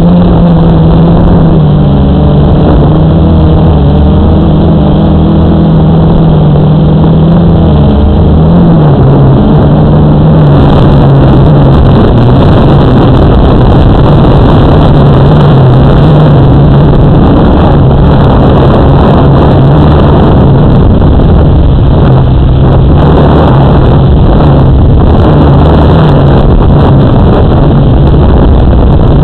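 Motor and propeller drone of a radio-controlled model aircraft, picked up by its onboard camera, with wind rushing over the microphone. The steady pitch drops a step about eight seconds in and then holds.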